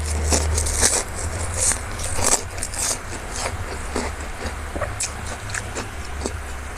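Close-miked eating: a person biting and chewing crisp food, with irregular crackling crunches.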